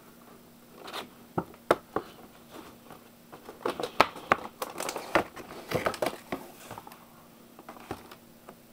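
Packaging being handled and opened: crinkling plastic with a string of sharp clicks and snaps, busiest in the middle and tailing off near the end.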